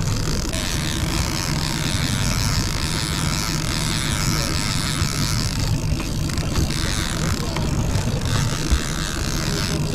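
Boat engine running steadily, a low hum under a constant hiss of wind and water, with one brief knock near the end.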